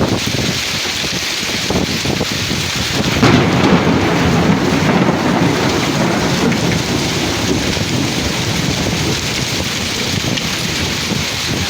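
Heavy rain falling steadily, with a low rumble of thunder swelling about three seconds in and rolling on for several seconds.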